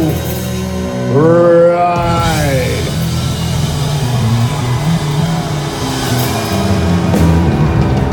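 Punk rock band playing live and loud: drums and guitars, with a long sliding vocal line about a second in.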